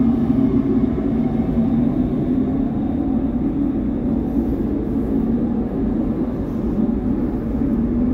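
Steady low rumble of a ferry's machinery, heard on its open deck; the level hardly changes.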